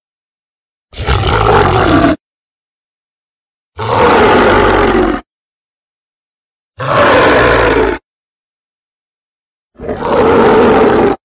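Were-beast sound effects: four separate loud monster roars, each about a second or a second and a half long, with silent gaps between them.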